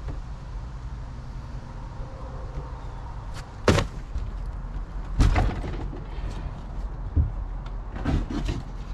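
Several sharp knocks and thuds from work inside a gutted fibreglass boat, the loudest about four seconds in and a cluster near the end, over a low steady rumble.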